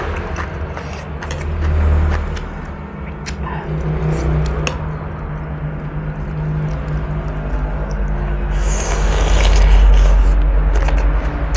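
Close-miked eating sounds: cooked whole shrimp being handled, pulled apart and chewed, with sharp clicks and a burst of crackling shell tearing near the end. A steady low rumble runs underneath.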